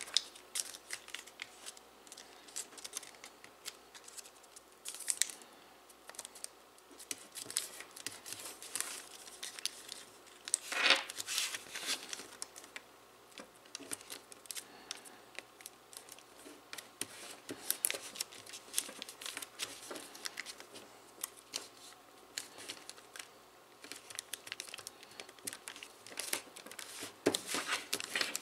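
Foil paper crinkling and crackling as it is folded and creased by hand. There are scattered sharp crackles throughout, with louder bouts about eleven seconds in and near the end.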